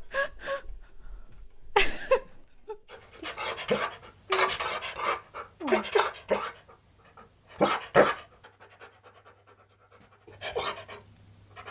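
A dog panting in irregular runs of quick breaths, going quieter for a moment about two-thirds of the way in.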